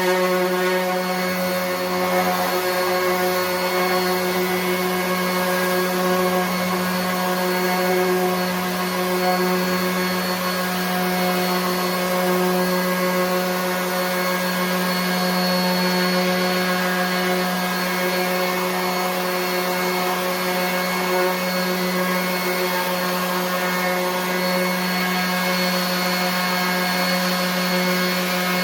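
RIDGID 18-volt cordless 5-inch random orbit sander running steadily while sanding a board: a constant motor hum over the hiss of the pad on the wood.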